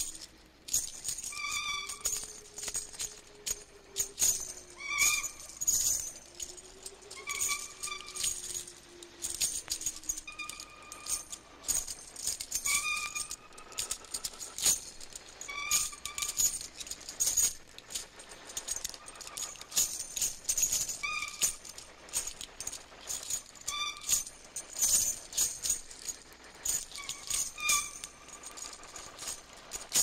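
Sound-effect rattling and jingling of metal chains, shaken over and over in irregular clatters, with short high squeaks every second or two. A low wavering tone runs through the first third.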